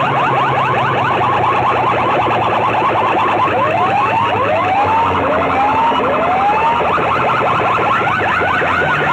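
Siren-style sound effects blasting through a stack of aluminium horn loudspeakers: rapid rising chirps, about five or six a second, with four slower rising whoops in the middle, over a steady low drone.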